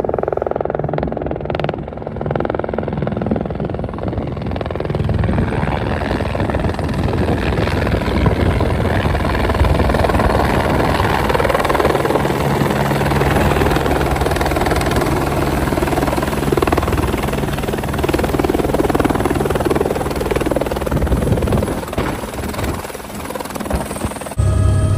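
Helicopter running close by: a loud, steady rotor and engine noise that grows louder a few seconds in. Near the end it switches abruptly to a steadier low hum.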